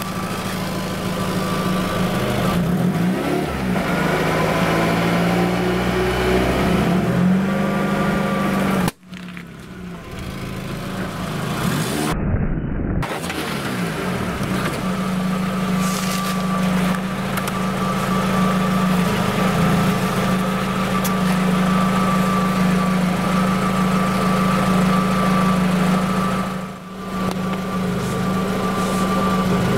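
Car engine running close to the ground with a steady hum, its pitch shifting and rising as the car creeps forward for the first several seconds. The sound breaks off briefly a few times.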